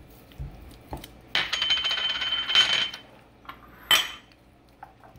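Glass on glass: a small glass prep bowl knocked and tapped rapidly against a glass mixing bowl with a ringing tone as dry spices are shaken out of it, then one sharp ringing clink about four seconds in.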